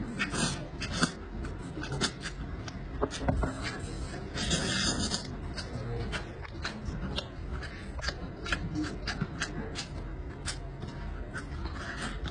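Close-miked eating sounds of a man gnawing saucy rib meat off the bone by hand: wet chewing, lip smacks and sucking, with many short clicks and a louder noisy stretch about four and a half seconds in.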